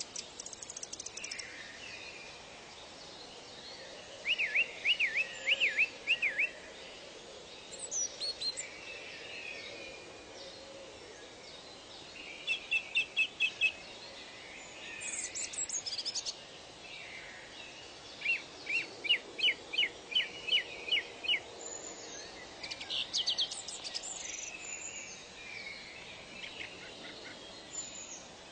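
Songbirds singing: several phrases of quick repeated sweeping notes a few seconds apart, with thin high calls in between, over steady background noise.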